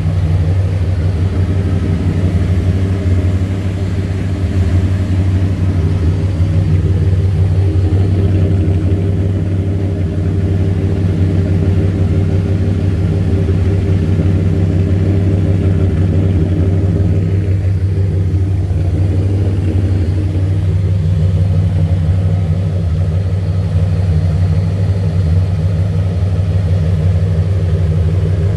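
Turbocharged 347 stroker small-block Ford V8 idling steadily with no revving, heard through its custom stainless steel turbo exhaust.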